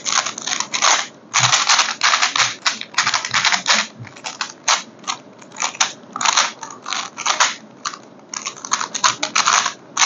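3x3 Rubik's cube being scrambled by hand: its plastic layers turned quickly over and over, giving irregular runs of rapid clicking and clacking with brief pauses between them.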